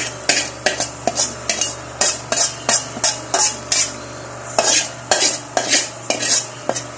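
Metal spatula scraping cooked ground pork out of a wok into a stainless steel stockpot: quick repeated scrapes and clinks of metal on the pan, about three a second, with a brief lull a little past the middle.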